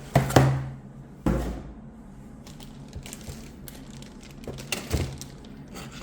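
Knocks, clicks and rustling of a laptop and its cardboard packaging being handled, with two louder thumps in the first second and a half.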